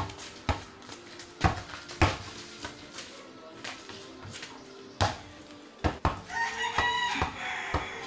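A basketball thudding on hard-packed dirt as it is dribbled, a handful of separate bounces. A rooster crows once about six seconds in.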